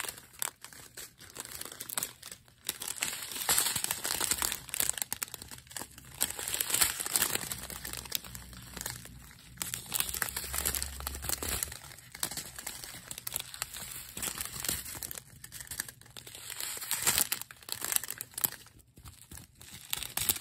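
Small clear zip-top plastic bags of diamond-painting drills crinkling and rustling as they are handled and flipped over, in irregular bursts.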